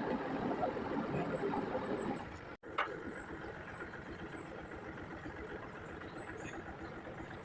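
Engine idling steadily. About two and a half seconds in it cuts out for an instant at an edit, a click follows, and it runs on a little quieter.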